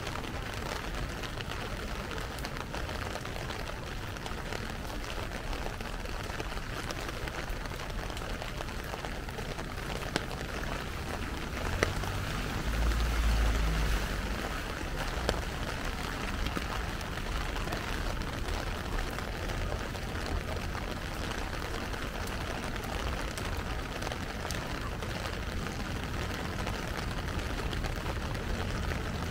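Heavy rain falling steadily, pattering on an umbrella and the street, with a few sharp drip ticks. A low rumble swells briefly about halfway through.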